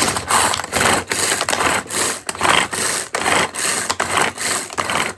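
A hand-held kitchen tool shredding soft cooked squash in repeated noisy strokes, about two a second.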